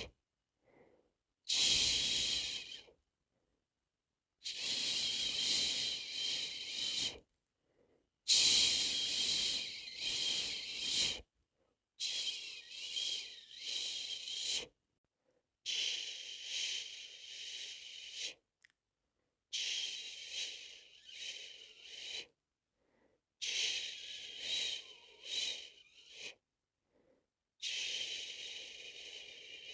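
A person shushing a baby to sleep, 'shhh' held for two to three seconds at a time and repeated about eight times, with a second or so of silence between each.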